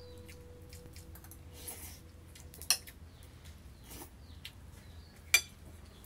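Spoon and fork clinking and scraping on a plate while eating, with light taps throughout and two sharp clinks, one near the middle and one near the end.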